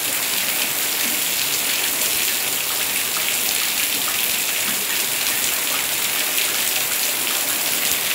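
Rain falling steadily onto a paved courtyard and wall: an even hiss with scattered drop ticks.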